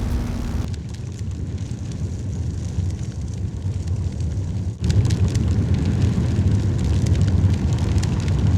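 Steady low rumble of an added fire sound effect for a flame power, with an abrupt jump in loudness about five seconds in.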